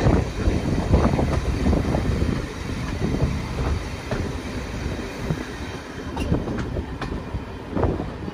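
Railway carriage hauled by a class 08 diesel shunter running along the track: a steady low rumble with irregular knocks and clatter from the wheels, louder for the first couple of seconds.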